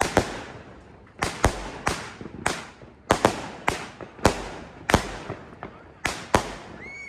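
Fireworks going off: more than a dozen sharp bangs in quick, uneven succession, each trailing off in an echo.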